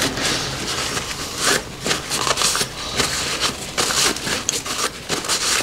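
Irregular rustling, rubbing and clicking as hands handle small parts and material at close range.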